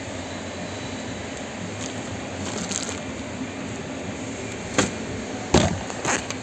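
Steady warehouse background hum with three short clacks of handled spare parts or equipment near the end, the middle one the loudest.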